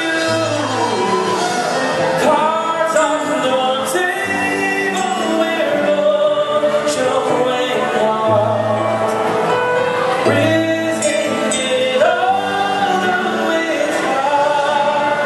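Live band music: a male vocalist sings into a microphone over electric guitar and drums, played loud through the stage PA.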